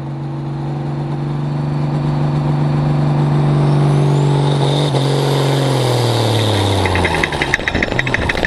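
A hot farm pulling tractor's diesel engine is held at high revs, belching black smoke and growing louder. About five seconds in, its pitch drags down over a couple of seconds as it takes the load and launches. Near the end it turns into a fast, loud rattling clatter as the tractor heads down the track.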